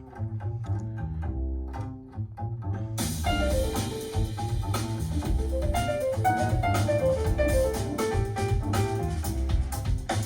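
Contemporary jazz played through KEF Q Concerto speakers and a subwoofer driven by a Yamaha R-N800A receiver: a bass line carries the first few seconds, then drums and cymbals come in suddenly about three seconds in and the full band plays on.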